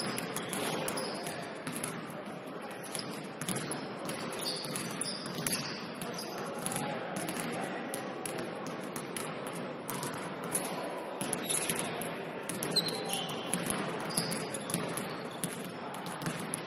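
Basketball game play on an indoor court: a basketball bouncing on a hardwood floor at an irregular rhythm, with short high sneaker squeaks scattered throughout.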